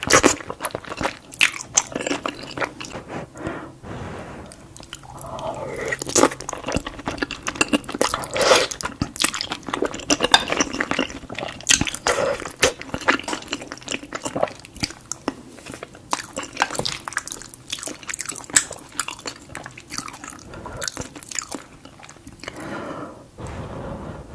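Close-miked eating of lasagna: biting and chewing, with many sharp, wet mouth clicks and smacks coming in quick, irregular runs.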